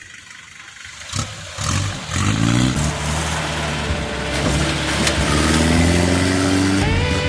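Engine of an old Mitsubishi-built Willys jeep coming in about a second in and rising in pitch three times as it revs and accelerates. Music starts near the end.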